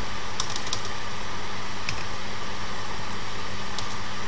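Steady background hiss with a low electrical hum, and a few faint computer keyboard key clicks as code is typed: a cluster near the start, one about two seconds in and one near the end.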